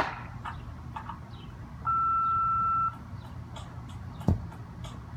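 A single steady electronic beep, one pure tone about a second long that starts and stops abruptly, followed a little later by a sharp knock with a low thud, over a low background rumble.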